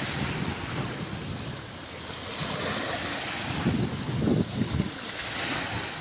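Wind buffeting the microphone, with small river waves washing onto a stony shore. The wind rumbles in gusts, strongest about four seconds in.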